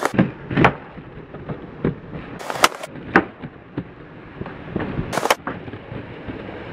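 Skateboards rolling on concrete, with a series of sharp pops and clacks as boards are snapped off the tail and land; the loudest cracks come about two and a half and five seconds in.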